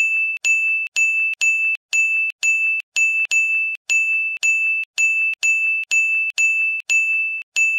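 A run of short, high electronic beeps on one pitch, about two a second with some in quick pairs, each held briefly and cut off sharply.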